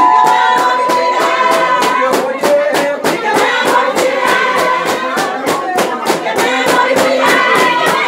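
Sëkëti song: a group of voices singing together over a steady rhythm of hand claps.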